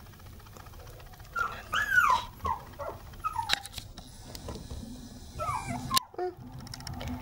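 Red toy poodle puppy, 50 days old, whimpering in a series of short, high-pitched squeaks that fall in pitch. The loudest comes about two seconds in, and a few more follow near the end.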